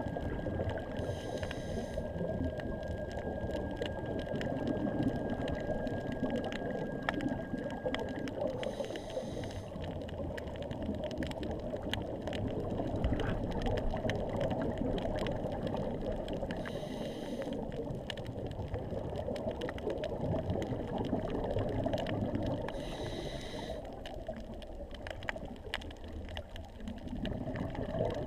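Underwater reef sound: a steady muffled wash of water with faint clicking throughout, and a short hissing rush four times, several seconds apart.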